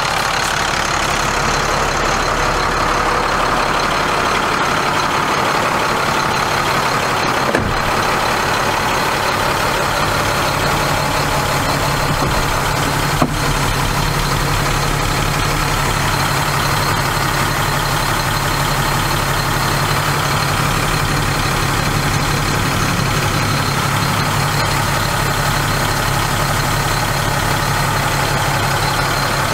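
International DT466 inline-six diesel of a 2006 International 4400 truck idling steadily, with two brief clicks about a quarter and nearly halfway through.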